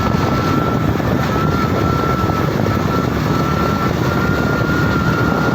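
Steady running noise of a motorcycle on the move, engine and rushing air together, with a thin steady whine above it.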